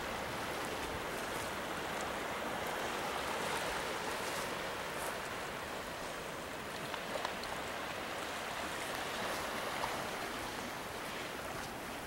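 Steady wash of surf on a rocky shoreline, a continuous even rush of water.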